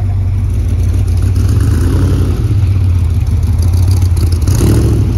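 Off-road trophy truck's engine running with a deep, steady rumble.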